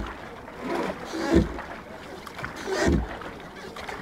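Wooden rowboat oars working in steady rhythmic strokes, one about every second and a half.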